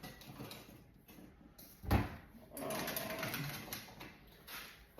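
Kitchen handling noise while thick cheesecake filling is worked and spooned out: a sharp thump about two seconds in, then a couple of seconds of utensil scraping and clattering against the bowl.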